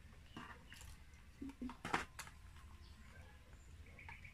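Scattered small clicks and knocks of food, cups and paper packaging being handled on a table during a meal, the loudest about two seconds in.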